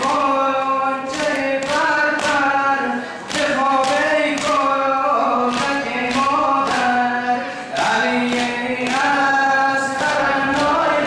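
Several male voices chanting a noha, a Shia lament, in unison through microphones, with a steady beat of chest-slaps (matam) a little under two a second.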